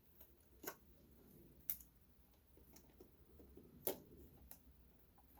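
A few light, sharp clicks and taps, about four in all, from the hard plastic body of an FMS FCX24 K5 Blazer RC truck being handled.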